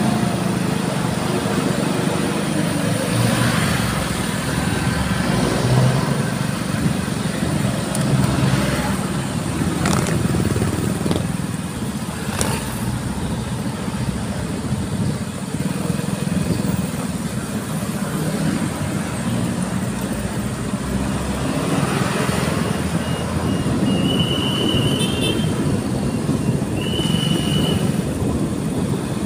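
Motorcycle engine running steadily while riding in town traffic, heard from the bike itself. Two short high-pitched beeps sound near the end.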